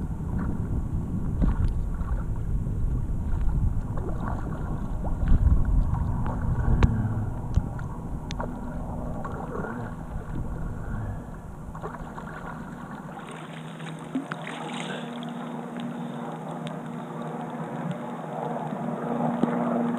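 Kayak being paddled across open water, with wind rumbling on the head-mounted camera's microphone and the paddle splashing and dripping in small clicks. The wind rumble drops away about thirteen seconds in, leaving the water sounds clearer.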